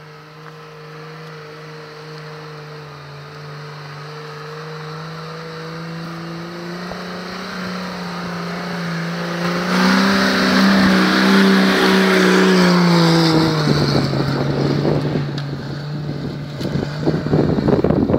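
Toyota Land Cruiser 70-series 4x4 engine pulling at low revs as it crawls through mud. It grows louder as it approaches, is loudest as it passes close, and drops in pitch as it goes by. Wind buffets the microphone near the end.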